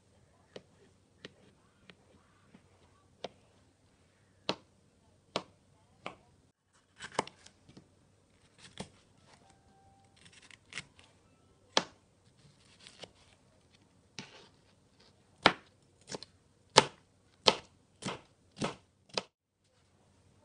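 Kitchen knife cutting through avocado and then red bell pepper onto a plastic cutting board: soft, scattered taps at first, then sharper knife-on-board chops, about one or two a second, loudest toward the end.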